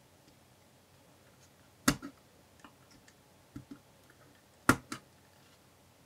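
Small sharp plastic clicks and ticks as a pry tool presses laptop Wi-Fi antenna cables into their routing channels: two louder clicks about three seconds apart, each followed quickly by a lighter one, with a few faint ticks between.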